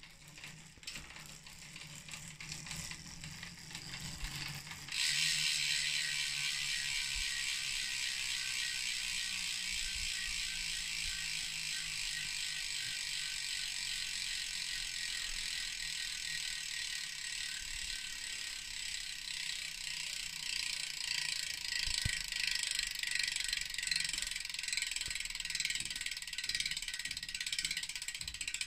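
Freewheel of a 2016 Bontrager Aeolus 5 rear wheel with DT Swiss hub internals, buzzing as the wheel spins: a dense, high-pitched ratchet buzz. It is fainter at first, jumps suddenly to full loudness about five seconds in, and then holds steady.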